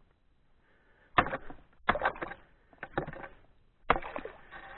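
Wooden pole knocking and jabbing against ice and slush in a hole in river ice: about five sharp knocks, starting a little over a second in and coming roughly once a second.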